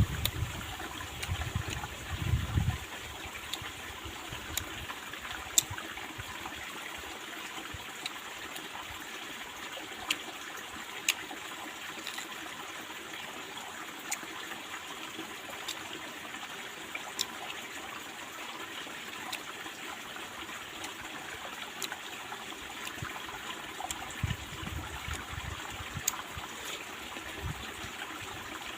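Stream babbling steadily, with scattered sharp clicks over it and a low rumble in the first couple of seconds and again near the end.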